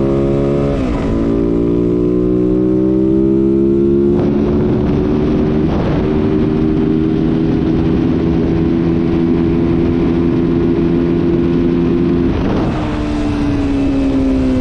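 Yamaha WR450F's single-cylinder four-stroke engine accelerating hard through the gears. The revs drop sharply with an upshift about a second in, climb again, and after a second change around four seconds in hold nearly steady near top speed. Near the end the revs drop and slowly fall away.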